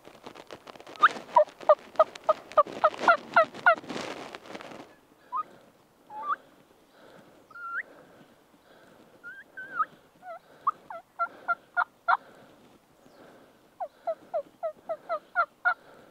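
Merriam's wild turkeys yelping: a quick run of about ten descending yelps near the start and another run of about eight near the end, with scattered single clucks and calls in between.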